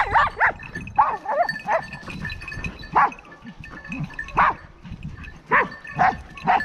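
Hunting dogs barking and yelping in short calls, about one every second, some in quick pairs, at a shot wild boar.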